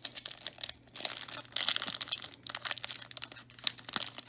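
A trading card pack's wrapper being crinkled and torn open by hand in irregular crackling bursts; the pack is a stubborn one to open.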